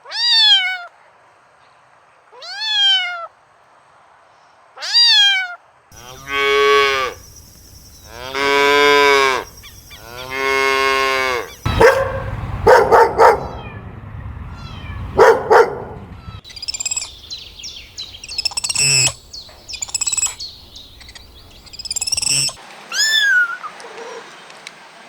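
A run of farm animal calls: three cat meows, then three long cow moos, then a stretch of shorter, sharper animal calls, and two more meows near the end.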